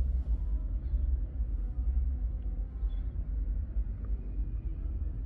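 Steady low background rumble, with a few faint light ticks over it.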